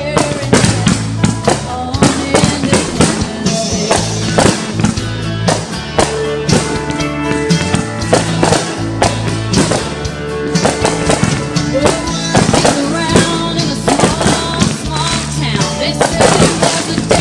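Music playing over consumer fireworks, with repeated sharp firework bangs and crackling throughout.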